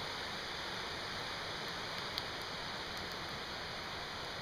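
Steady rushing of a mountain river's rapids, with one brief sharp click about halfway through.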